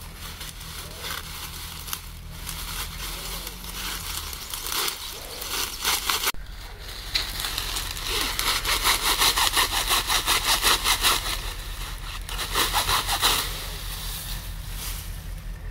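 Dry grass and straw rustling and crackling as it is pulled up and bundled by hand, in quick, rough strokes that grow louder and denser about halfway through.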